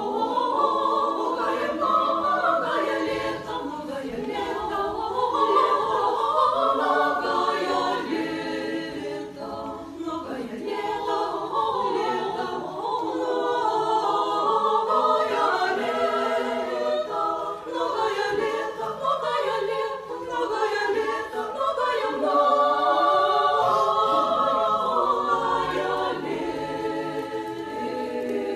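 Small church choir of mainly women's voices singing a cappella.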